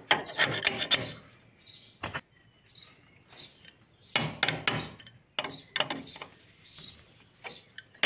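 Steel spanner clicking and clinking on a nut and a steel plate as a bearing bolt is tightened, in irregular clusters of sharp metal knocks. Small birds chirp faintly between them.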